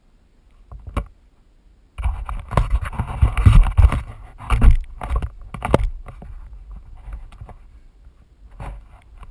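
Wooden sandboard sliding down a sand dune: a rough rushing scrape of the board over the sand with wind buffeting the microphone, starting abruptly about two seconds in and easing off after about six seconds. A single sharp knock comes about a second in, before the slide.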